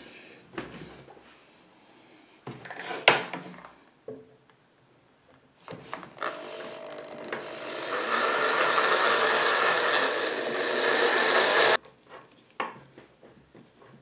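Electric drill boring into a brass plug in a brass padlock body. It starts about six seconds in, grows louder and cuts off abruptly near the twelve-second mark. Before it come a few faint clicks and a short scrape.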